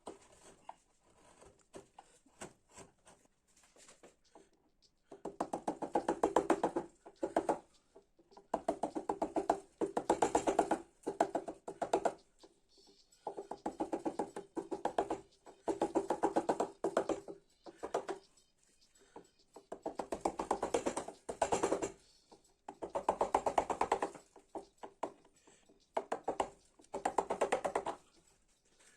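Rapid, light tapping of a mallet on a carving chisel cutting into an ash panel, in bursts of about two seconds with short pauses between, seven bursts in all.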